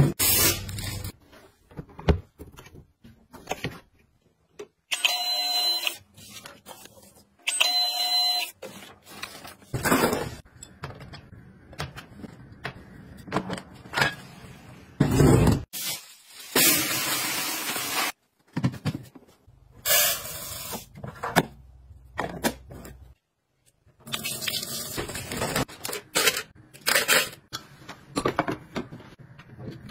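A run of short, separate household handling sounds: items being cut, turned and set down on a counter, changing abruptly from one to the next. Two matching sounds a few seconds in each carry a steady high tone.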